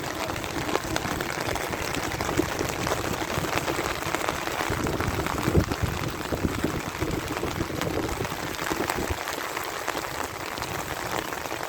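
Heavy rain falling, a steady dense patter of many drops striking surfaces, with one louder knock about halfway through.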